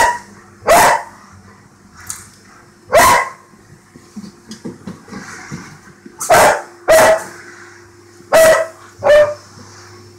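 A dog barking, about seven short, loud barks at irregular intervals, with a steady low hum underneath.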